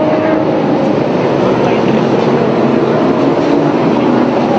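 Engines of late model stock cars running at speed around the oval, a loud, steady drone with no break.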